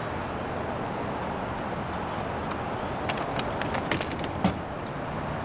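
Steady outdoor traffic noise over wet pavement, a low even hiss with a faint engine hum. A few light clicks from about three seconds in and one sharp knock near four and a half seconds, around a car's rear hatch.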